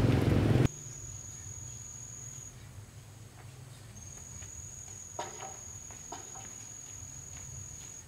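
A loud rushing noise cuts off abruptly under a second in, leaving an insect's steady, high-pitched trill that stops for about a second and a half and then resumes, with a few soft knocks.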